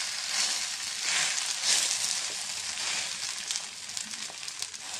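Oil sizzling under a sago thalipeeth frying on a tawa, freshly turned over. The sizzle swells a few times in the first two seconds, then eases a little, with small crackles near the end.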